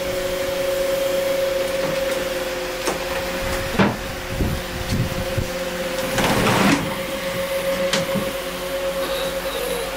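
A steady mechanical hum at one pitch, with scattered knocks and clatters on top and a longer rattle about six seconds in.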